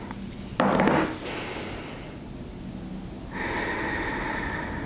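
A woman's audible breathing through the nose during a deep-breathing exercise: a short, sharp breath about half a second in, then a long, steady breath starting a little past three seconds.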